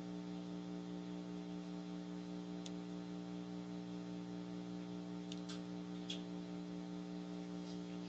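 Steady electrical mains hum with a faint buzz of evenly stacked tones, broken by a few faint ticks.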